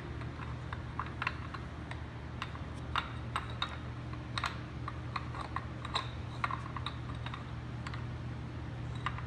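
Light, irregular metallic clicks as the camshaft variator and timing chain are handled and fitted by hand on the engine's cylinder head, over a steady low hum.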